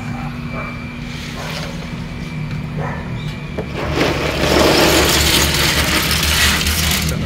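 Biological filter media, yellow filter balls and shells, poured from a plastic basin into a mesh bag in a plastic drum: a loud clattering rush that starts about four seconds in and stops abruptly near the end. A steady low hum runs underneath.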